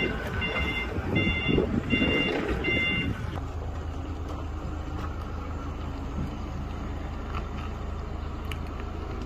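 Forklift engine running steadily as it moves a loaded pallet. Over the first three seconds a high electronic beep repeats a little faster than once a second, then stops.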